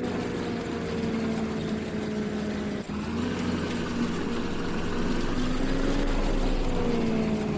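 Combine harvester engine running steadily, its pitch sagging slowly, rising slightly around six seconds in and falling again, with a brief drop in level near three seconds.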